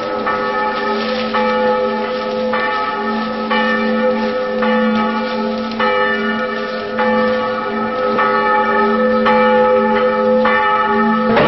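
A large bell tolling, struck about once a second with each stroke ringing on and overlapping the next over a steady low hum.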